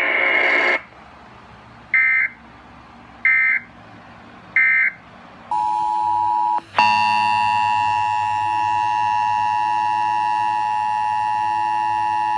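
Emergency Alert System signalling: three short, shrill digital data bursts about a second and a quarter apart, typical of the end-of-message code that closes an alert. About five and a half seconds in, a steady electronic alert tone begins; it breaks briefly, then holds on as a loud, even multi-tone alarm signalling the start of the next warning.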